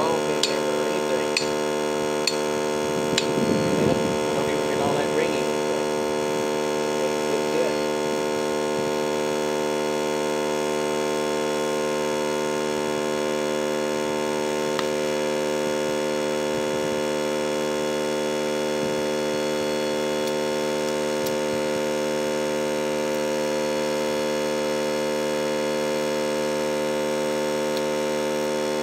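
Steady electrical hum that does not change, with a few brief clicks and knocks in the first few seconds.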